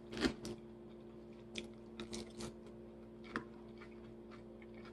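Close-miked chewing of a mouthful of salad: a sharp mouth click just after the start, then a few short crisp crunches. A faint steady hum runs underneath.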